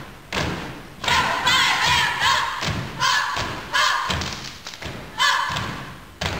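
Step team stomping in unison on a stage floor in boots, with claps: sharp group stomps at uneven intervals, each followed by shouted voices.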